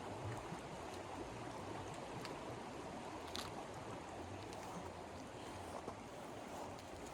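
Steady rushing noise of blizzard wind, with a few faint clicks, one of them about three and a half seconds in.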